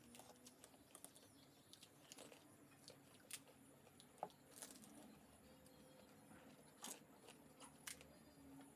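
Faint, scattered crunching and mouth clicks of pani puri being eaten, with a few sharper crunches around the middle and near the end.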